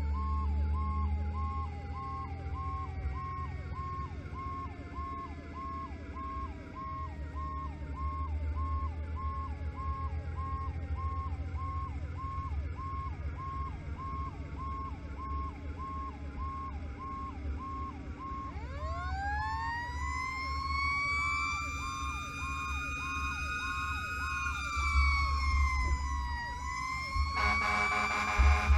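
A fire-rescue truck's sirens sound while it drives. An electronic siren cycles rapidly, about twice a second. A second siren tone slowly falls, then winds up steeply about two-thirds of the way through, dips and rises again. Under the sirens runs a steady low rumble of engine and road. Near the end a loud, many-toned horn-like blast joins in.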